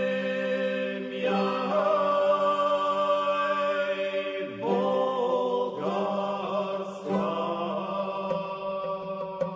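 Background music: a slow, chant-like line of held notes over a steady low drone, with new phrases coming in several times.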